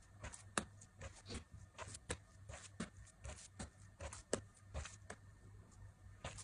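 Hands stretching and folding a wet, high-hydration pizza dough (75% water) on a wooden board: a string of soft, irregular slaps, squelches and pats, several a second, over a faint low hum.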